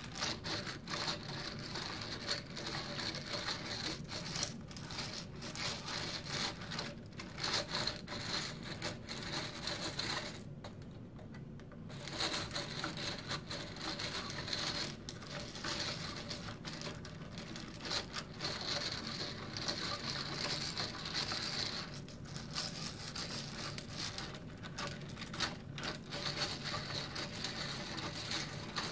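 A hand-cranked 3D-printed plastic ball screw running: the steel balls click and rattle as they roll through the plastic nut's recirculating channel, a continuous crackling clatter. It drops away briefly about eleven seconds in.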